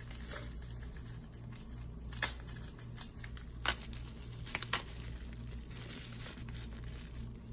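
Plastic packaging crinkling as small 3D printed model parts are handled, with a few sharp clicks and taps, including a quick pair about halfway through, over a steady low hum.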